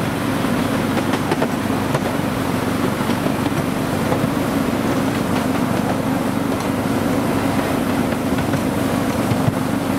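Miniature railway train running steadily along the track, heard from on board: a continuous drone of the locomotive and wheels at an even level.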